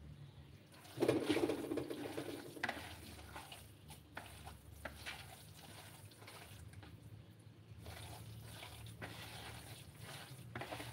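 A hand squeezing and mixing a moist grated tuber mixture in a plastic basin, giving wet squishing, rustling and scattered small clicks, with a louder rasping stretch lasting under two seconds about a second in.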